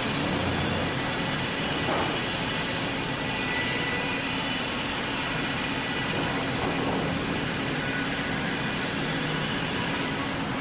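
Sawmill head rig running steadily as the carriage carries a large log through the saw: a continuous mechanical din at an even level.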